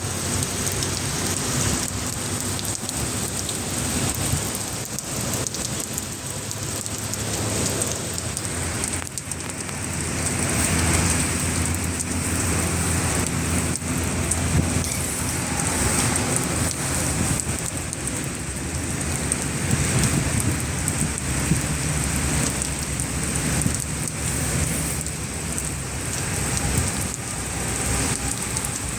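Steady, fairly loud rain falling, a dense hiss of many drops striking a surface, swelling slightly about a third of the way through.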